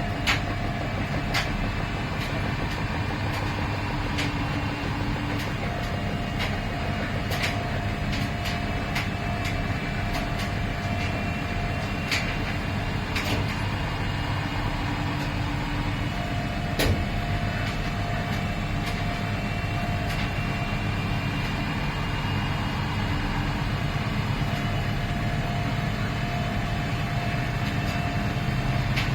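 Miele PW 6080 commercial washing machine running: a steady low hum with a faint whine that slowly rises in pitch through the second half, and scattered sharp clicks and knocks every second or two.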